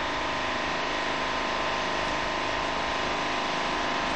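Van engine idling close by: a steady, unchanging mechanical hum.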